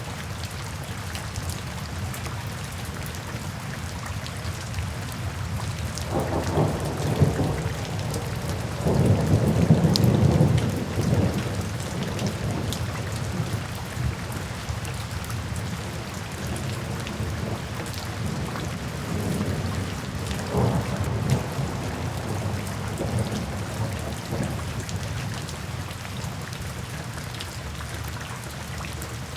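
Steady rain falling, with thunder rumbling twice: a long roll starting about six seconds in, loudest around ten seconds, and a shorter one about twenty seconds in.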